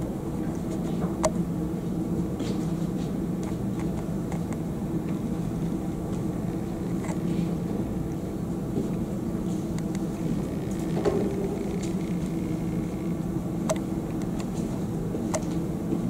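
Steady low mechanical hum with a few faint, short clicks.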